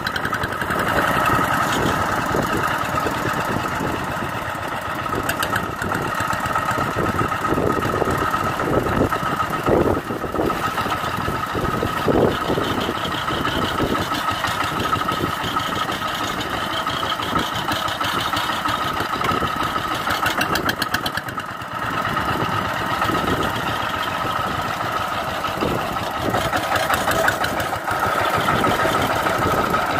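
Single-cylinder diesel engine of a two-wheel walking tractor running steadily under load with a rapid, even beat while its rotary tiller works through wet paddy mud.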